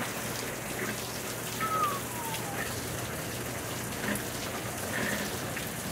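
Heavy monsoon downpour, dense rain falling steadily in an even hiss. A short, faint falling tone sounds about two seconds in.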